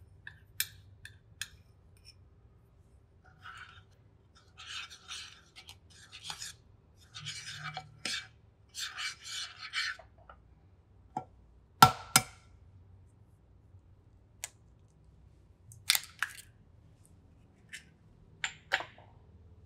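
A metal fork scraping and stirring dry flour in a glass baking dish, a series of short scratchy strokes, with sharp clicks and knocks of metal on glass; the loudest knocks come about two-thirds of the way through.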